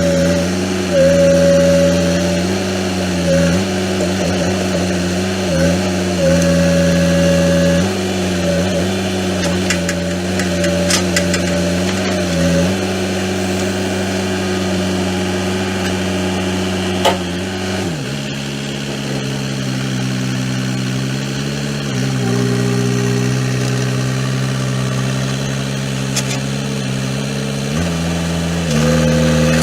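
Excavator's diesel engine running steadily. Its pitch drops to a lower speed about two-thirds of the way through and comes back up near the end, with a few short knocks along the way.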